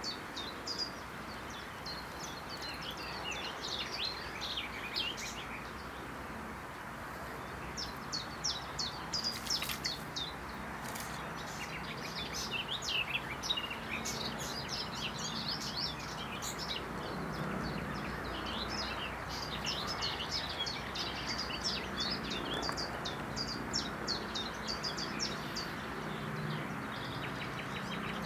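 Small songbirds chirping and twittering in repeated bursts over a steady rushing background noise, with a faint low hum coming in about halfway through.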